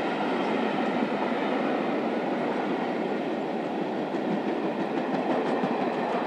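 Train of passenger coaches passing at speed: a steady rumble of steel wheels on the rails, with some faint clicking over rail joints a few seconds in.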